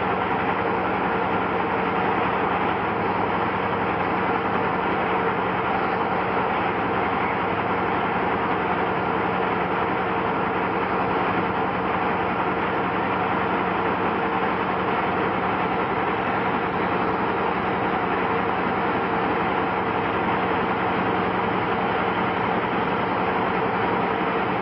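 Class 55 Deltic diesel locomotive D9000 idling on just one of its two Napier Deltic 18-cylinder opposed-piston two-stroke engines, a steady, unchanging engine drone.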